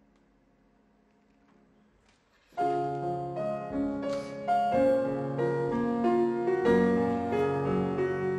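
Grand piano in a classical piece for clarinet and piano: after about two and a half seconds in which the last notes die away almost to nothing, the piano comes in suddenly and loudly with a busy passage of chords and runs, playing alone.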